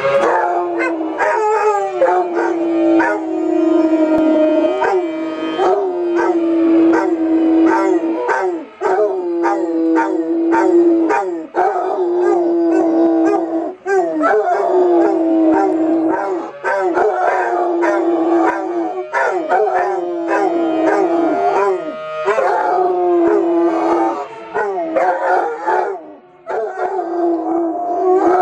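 Two basset hounds howling and barking along with a volunteer fire department siren, in long wavering howls broken by short barks and yips, over a steady held wail. The sound stops abruptly at the end.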